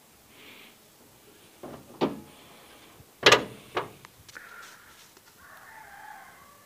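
A few sharp metal clunks as the hood of a 1986 Nissan Datsun Sakura is unlatched and raised, the loudest about three seconds in. A rooster crows faintly near the end.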